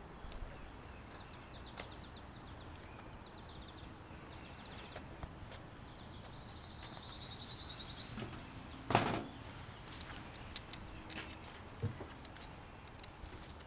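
Small birds chirping in the background, with a short trill about seven seconds in. About nine seconds in there is a single thump, then a few light clicks.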